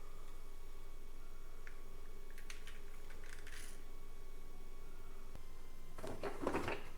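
Light scattered clicks of small hard objects being handled, then a short, louder clatter near the end, over a faint steady hum.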